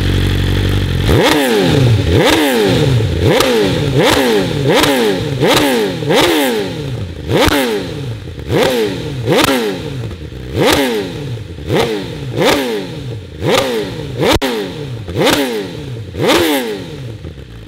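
Litre-class inline-four superbike engine idling, then free-revved in more than a dozen quick throttle blips, a little faster than one a second. Each blip shoots up in pitch and falls straight back. A single sharp crack comes about two-thirds of the way through, and the engine settles back to idle near the end.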